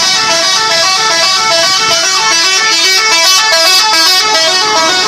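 Indonesian bus 'telolet' musical air horn playing a fast melody, several horn tones sounding together and changing note several times a second.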